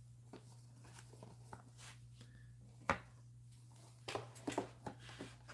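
Cardboard trading-card hanger boxes being handled and set on a tabletop. There is one sharp tap about three seconds in, then a quick run of taps and rustles near the end, over a faint steady low hum.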